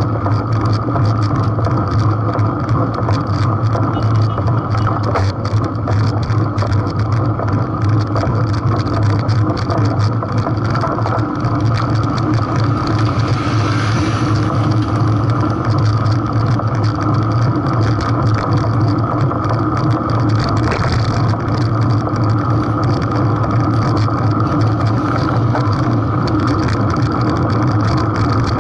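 Steady rumble of road and wind noise on a bicycle-mounted camera, with a strong low drone. A motor scooter passes close by about halfway through.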